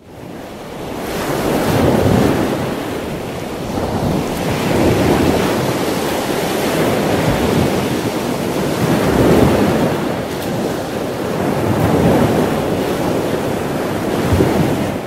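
Ocean surf breaking: a loud rushing wash that fades in over the first two seconds, then swells and eases every few seconds as the waves come in.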